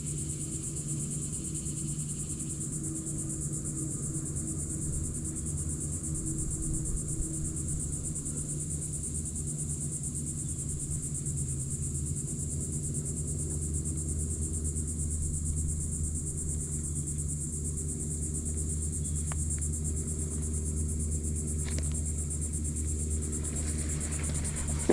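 Steady high-pitched chorus of insects, unbroken, over a low steady hum.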